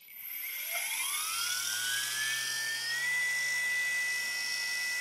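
A DIY CNC router spindle, built from a 350kV brushless outrunner motor with an ER16 collet spindle, spins up from rest with no load. Its whine climbs in pitch over about three seconds, then holds at a steady high whine.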